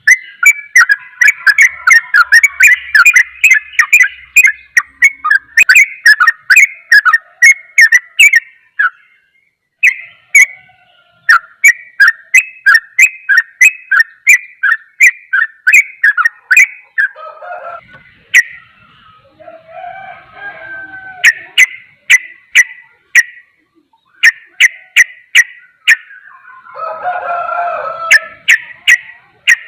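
Yellow-vented bulbul (trucukan) singing a ropel: long, fast runs of sharp, repeated chirping notes with brief pauses between runs. A lower, rougher warble comes in briefly about two-thirds of the way through and again near the end.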